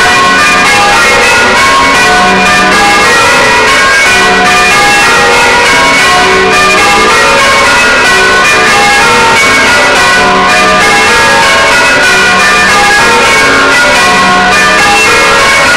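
A ring of six church bells, tenor about 12 cwt, being rung full circle, heard from inside the belfry beside the bells. Loud, overlapping bell strokes follow one another without a pause.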